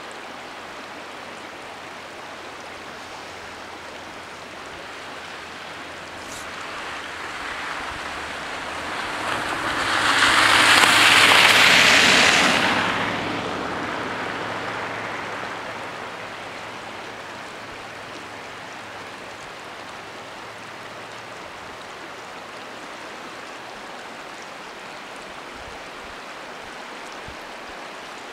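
A road vehicle drives past. Its tyre and engine noise swells to a loud peak about ten to thirteen seconds in, then fades away, with a low engine drone trailing on for several seconds. A stream rushes steadily underneath.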